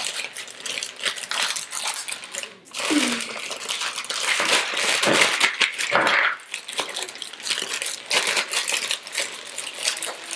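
A clear plastic bag crinkling and crackling as it is pulled open and handled, with light clicks of the plastic toy track pieces inside knocking together.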